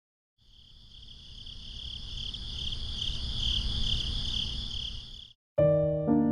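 Crickets chirping steadily in a high pulsing trill over a low rumble, fading in and then cutting off abruptly about five seconds in. Piano music starts right after.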